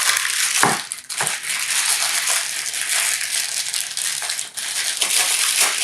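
Stiff plastic packaging crinkling and crackling as it is pulled and torn open by hand, with a few sharper crackles around the first second.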